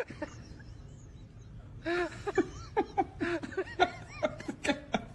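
A person laughing in short, repeated bursts of chuckles, starting about two seconds in after a quiet stretch.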